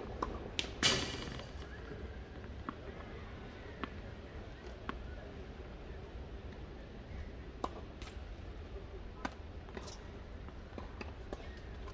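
Scattered sharp knocks and clicks at irregular intervals, with a louder, brief rushing burst about a second in, over a low steady rumble.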